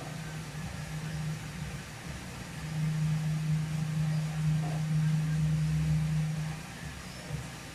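Small electric motor humming steadily at a low pitch, louder for about four seconds from around three seconds in, then dropping back.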